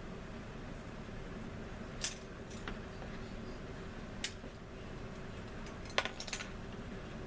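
Light clicks and taps of small plastic model-kit parts and tools being picked up and set down on a workbench, a few scattered knocks with a cluster of three about six seconds in, over a steady background hum.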